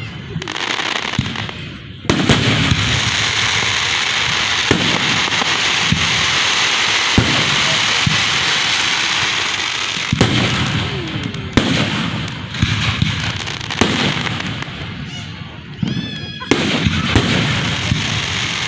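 Aerial fireworks going off close by: a run of sharp bangs a second or two apart, with dense crackling between them and a short whistle near the end.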